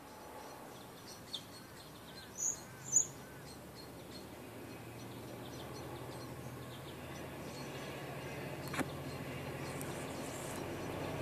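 Two short bird chirps about two and a half seconds in, over faint outdoor background noise. A low steady hum comes in about four seconds in and slowly grows.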